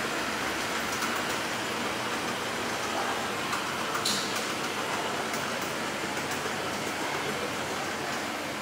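Escalator running: a steady hiss of the moving steps and drive, with one short click about four seconds in at the top landing.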